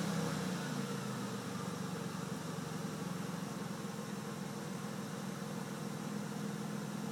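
1998 Dodge Caravan's 3.3-litre V6 engine running steadily, easing down slightly in the first second and then holding an even note.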